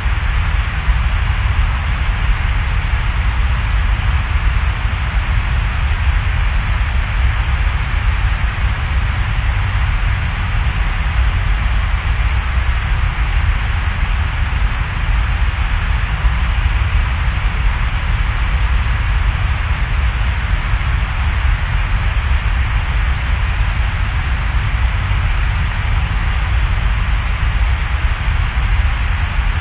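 Loud, steady hiss with a deep rumble underneath. It does not change, and has no pitch or rhythm.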